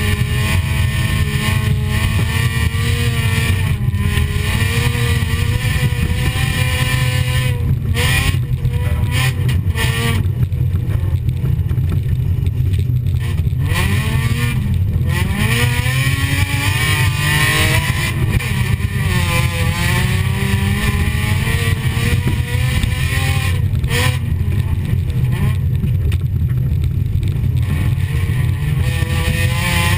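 Folkrace car's engine heard from inside the cabin, revving up and down over and over as it is driven hard, with a heavy low rumble. A few brief knocks cut through it, about eight, ten and twenty-four seconds in.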